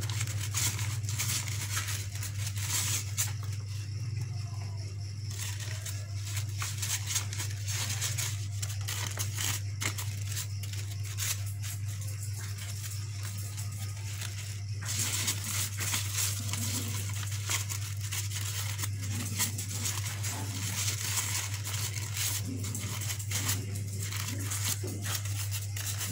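Crepe paper rustling and crinkling as hands press and shape the petals of a paper rose, in many small irregular crackles, over a steady low hum.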